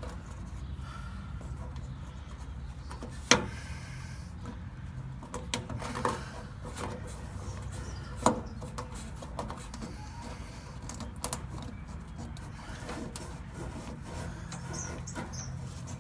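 Scattered knocks, clicks and scrapes of tools and parts being handled during work on a pickup truck, over a steady low rumble. The loudest knock comes about three seconds in.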